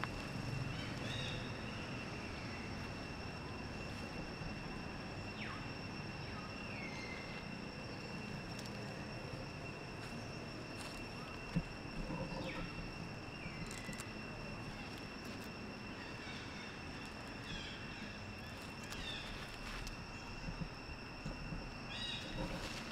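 Steady high insect drone, two even tones held throughout, over outdoor background noise. A few short falling chirps come now and then, and a single sharp click is heard about halfway through.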